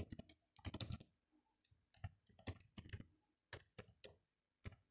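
Typing on a computer keyboard: faint keystroke clicks in short, irregular clusters.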